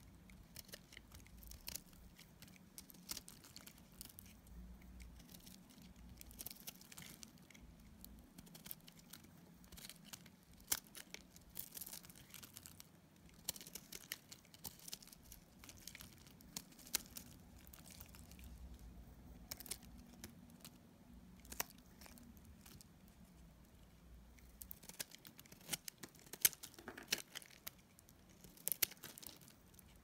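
A utility-knife blade cutting and shaving a bar of dry soap, with irregular crisp crackling and crunching as curls and chunks break off. The crackles come thicker and louder near the end.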